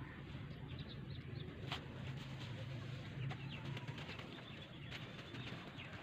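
Hands squelching and stirring wet sand in a shallow pool of muddy water, with soft splashes and small crackles and clicks over a low rumble.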